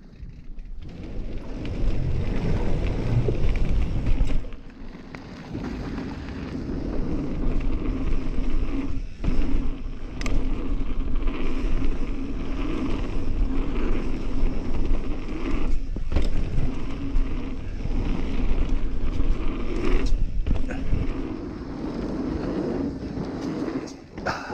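Mountain bike riding down a dirt singletrack: a steady rush of tyres rolling over dirt and wind on the microphone, building up in the first second or two, with a few sharp knocks and rattles from the bike over bumps.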